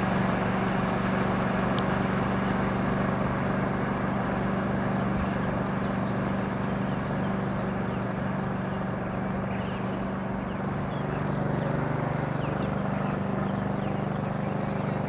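A small engine running steadily, with its note dropping slightly about eleven seconds in.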